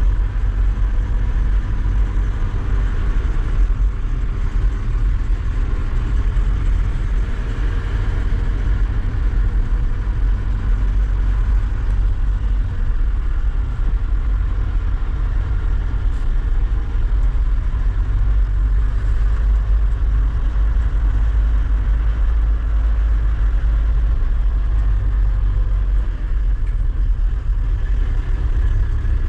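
Mahindra Bolero 4x4 pickup's engine running steadily under way, a deep rumble with a faint engine hum above it.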